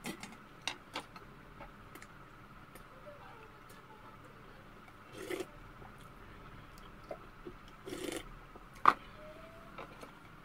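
Eating sounds: chopsticks and a wooden spoon clicking and scraping against stainless steel bowls, with two short slurps of bean sprout soup from the spoon, and one louder, ringing clink on a metal bowl near the end.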